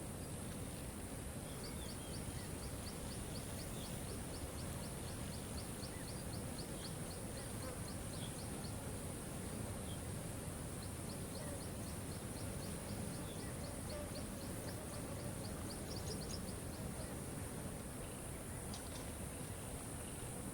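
Waterfall rushing steadily, with a high, fast ticking trill, about four or five notes a second, running twice for several seconds over it.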